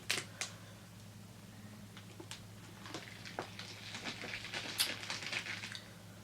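Close-miked chewing and mouth sounds of someone eating a cheesesteak: scattered wet clicks and smacks, busier from about four seconds in, over a low steady hum.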